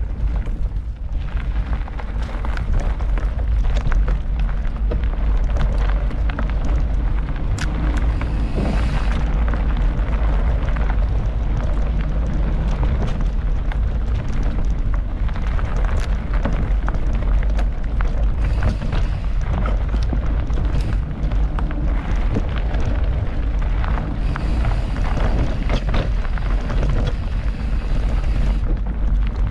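Mountain bike riding along a forest trail, heard on a camera riding with it: a steady heavy low rumble of wind and tyre noise, with scattered knocks and rattles from the bike over bumps.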